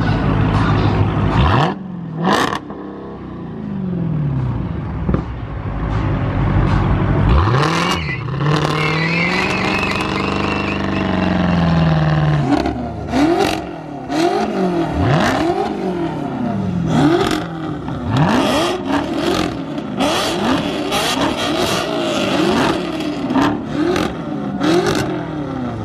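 Dodge Charger R/T's V8 engine being revved hard while parked: one long rev that climbs, holds and falls away, then a quick string of short blips about one a second, with sharp cracks among them.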